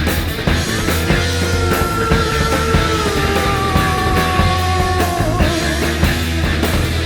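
Rock music with a steady beat, one long held note sliding slowly downward through the middle.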